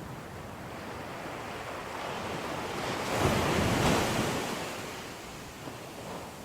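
Ocean waves breaking on a shore: one wave swells up, crashes about three seconds in and washes out, with some wind on the microphone.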